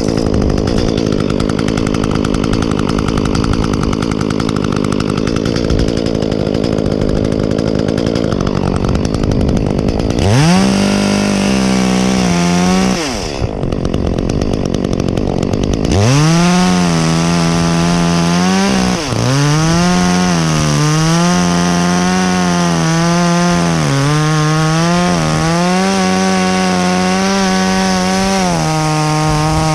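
Echo two-stroke chainsaw running at lower speed, then revving up about ten seconds in and easing off. From about sixteen seconds it is held at high revs, dipping in pitch again and again, as in cutting through wood.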